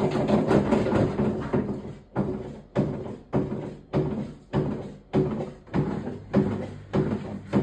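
Electrolux front-load washing machine drum running with a loud, dense rumble that, after about a second and a half, breaks into a regular knock-and-rumble repeating a little under twice a second. This is the abnormal loud noise the owner complains of, worst during the spin.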